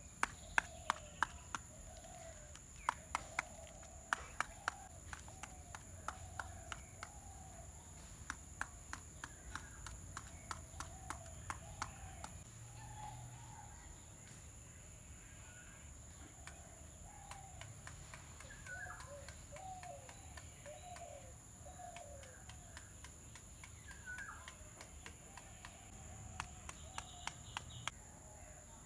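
Garden ambience: birds calling on and off over a steady high insect drone. A run of sharp clicks or taps, the loudest thing, fills the first twelve seconds and comes back briefly near the end.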